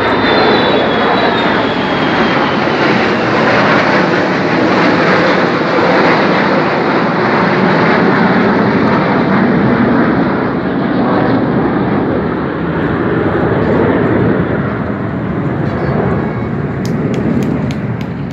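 Roar of a military jet formation, a large bomber with four fighter jets, flying overhead. It stays loud for about ten seconds, then slowly fades and grows duller as the jets move away.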